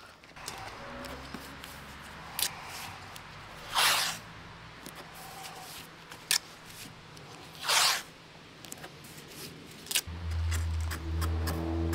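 Blue painter's tape being pulled off the roll in two loud rasping rips, with smaller crinkles and taps as it is pressed down onto the car's paint. A low steady hum starts near the end.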